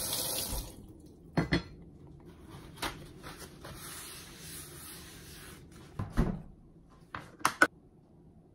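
Paper towel wiping a wooden cutting board, a soft steady rubbing, set between a few knocks on the board. Near the start there is a burst of crinkly plastic-bag noise, and near the end a few sharp clicks as a plastic container is handled.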